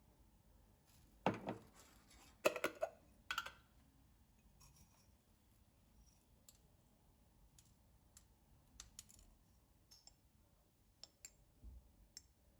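Light clicks and knocks of small objects being handled: a few louder knocks in the first few seconds, then scattered soft ticks.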